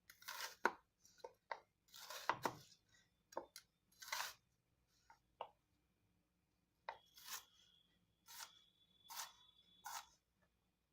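An 8-inch stainless steel chef's knife cutting an onion: irregular crunching strokes, coming fast at first and then as a slower run of single cuts near the end.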